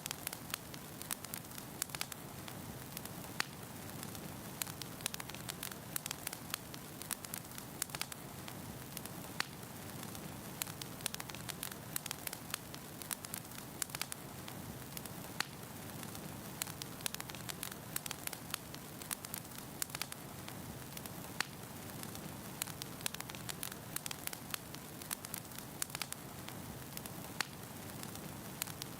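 Wood fire burning in a fireplace: a steady low rush of flame with frequent irregular sharp crackles and pops from the burning logs.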